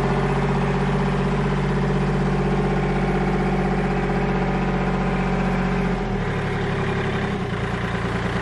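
Kubota L2501 compact tractor's diesel engine running steadily as the tractor drives. The engine note shifts about six seconds in.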